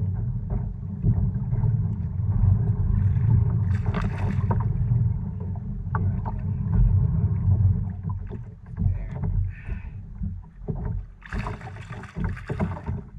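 Small fishing craft moving on the water: a loud, uneven low rumble of water and wind noise. It eases off after about eight seconds, and a burst of splashing and rustling follows about eleven seconds in, lasting over a second.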